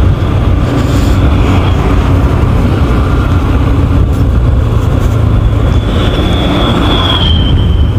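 Yamaha FZ V2 motorcycle running at riding speed, its engine under heavy, steady wind rumble on the microphone.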